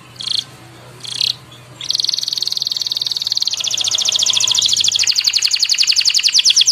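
Domestic canary singing: two short chirps, then from about two seconds in a long, rapid roll of repeated high notes that slowly widens in spacing as it goes on.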